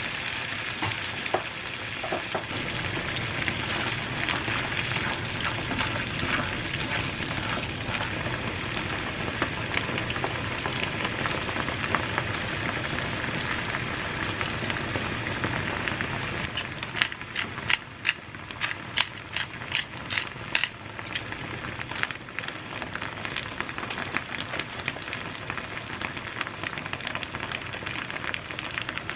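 Clams and garlic simmering in water in a frying pan on a gas burner, sizzling and bubbling steadily. About two-thirds of the way through, a run of sharp crackling pops lasts a few seconds.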